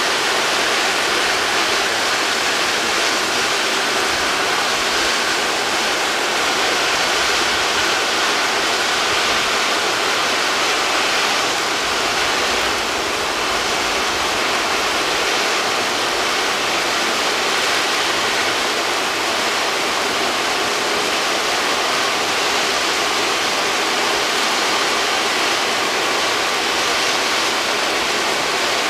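Battery of stage firework fountains arranged in a ring, spraying sparks with a steady, even hiss.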